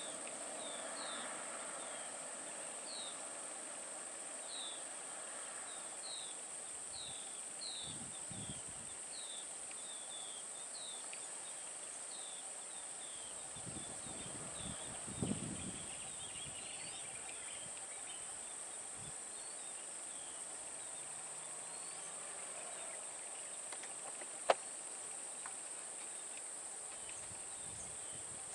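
Steady high-pitched insect drone, with a bird repeating short falling chirps for the first twelve seconds or so. A brief low rumble comes about halfway, and a single sharp click comes near the end.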